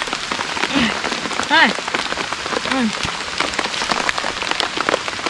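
Steady rain falling, a dense pattering of many drops. Three short voiced exclamations from people break in during the first three seconds.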